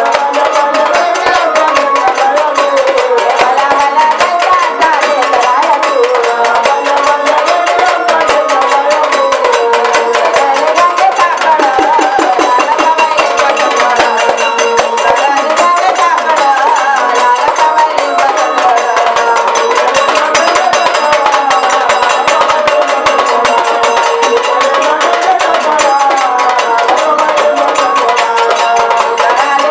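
A woman singing a Khandoba devotional song in the jagaran gondhal style, her voice winding up and down in a long melodic line. A fast, steady percussion accompaniment of sharp, clicking strokes runs beneath it.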